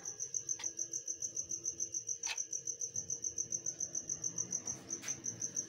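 A cricket chirping steadily in a rapid high pulse, about eight pulses a second, with a few faint clicks.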